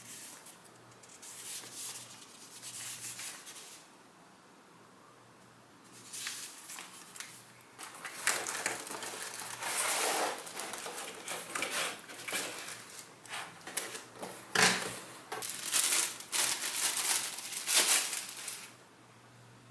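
Paper and packaging crinkling and rustling in irregular bursts as the impact driver's user manual and wrapping are handled.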